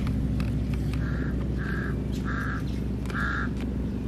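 A bird calling four times in short, evenly spaced calls, starting about a second in, over a steady low background hum.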